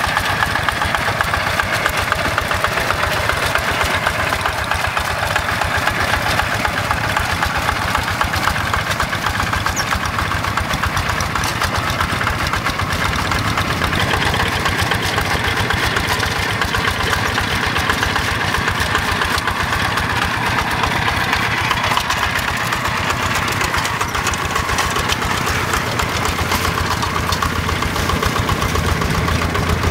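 Single-cylinder Yanmar diesel engine of a Quick G1000 two-wheel hand tractor running steadily with a fast, even beat while it pulls cage wheels and a leveling board through flooded paddy mud.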